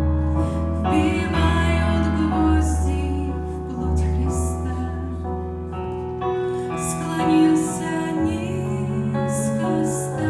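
Slow, gentle music with a sustained bass line and held chords.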